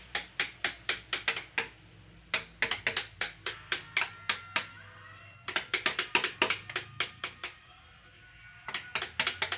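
Wooden mallet striking a carving chisel into teak wood: sharp taps in quick runs of several a second, broken by short pauses.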